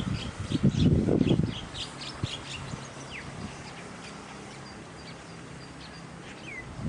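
Small birds chirping in quick short notes, with single downward-sliding calls about three seconds in and near the end. A burst of low thumps in the first second and a half is the loudest sound.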